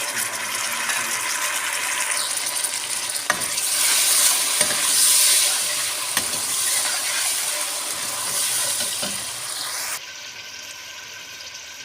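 Chopped tomatoes frying in hot oil with browned onions and garlic, a loud sizzle as the pan is stirred, with a few sharp scrapes or knocks of the spoon. The sizzle swells about four seconds in and drops off suddenly near the end.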